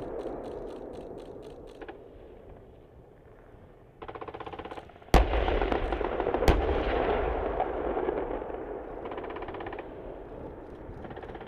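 Live fire from M1A2 Abrams tanks: bursts of machine-gun fire, then two loud cannon shots from the 120 mm main guns about a second and a half apart, each followed by a long rolling rumble. More short machine-gun bursts follow near the end.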